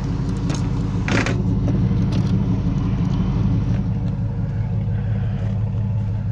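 Pickup truck engine idling steadily, with a brief sharp clatter about a second in and a few lighter knocks as a glass-panelled door frame is handled.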